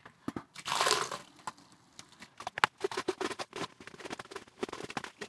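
Dry plaster powder poured from a plastic bucket into a bucket of water to slake it: a brief loud rushing hiss about a second in, then a run of small crackles and ticks as the powder keeps sprinkling in.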